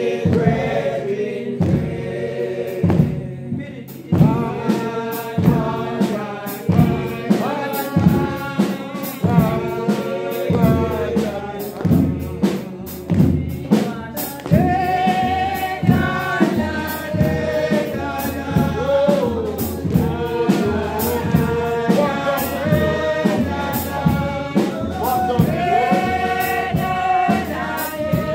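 Group singing of a gospel song, several voices together over a steady beat.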